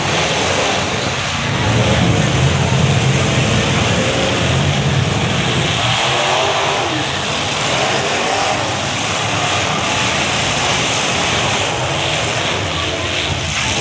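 Several demolition derby cars' engines running and revving together in a loud, continuous din, the engine pitch rising and falling repeatedly.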